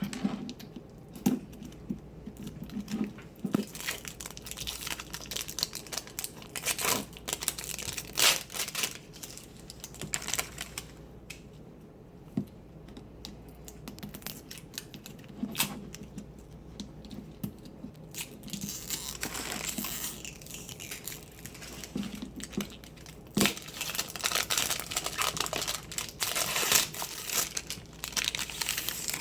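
Crinkling and tearing of the plastic wrapping on an L.O.L. Surprise doll ball as it is unwrapped by hand: irregular crackles and sharp rips, busier and louder in the last third.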